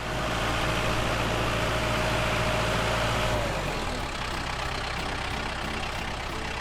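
Heavy truck engine running steadily, easing down a little in pitch and level about three and a half seconds in.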